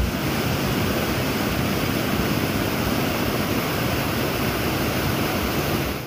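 Rocky mountain stream rushing over boulders in white water: a steady, even roar of fast-flowing water.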